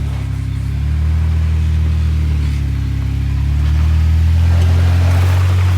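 Off-road 4x4's engine running with the throttle held on while it tries to climb after losing traction. Its revs pick up about a second in and again near four seconds.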